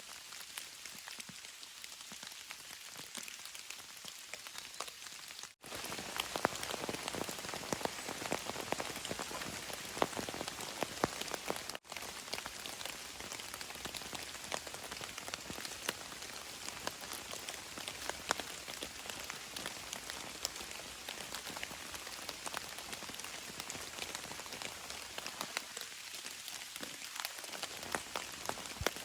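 Steady rain, with many individual drops striking a surface close by. It cuts out for an instant about five seconds in, returning louder and fuller, and cuts out for an instant again about twelve seconds in.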